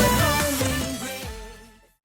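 Music fading steadily away, dying to silence just before the end.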